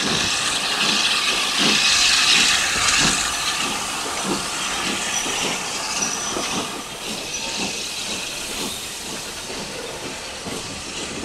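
Steam locomotive letting off steam: a loud hiss that starts abruptly, is strongest over the first three seconds, then eases to a steadier hiss, with a low beat about once a second underneath.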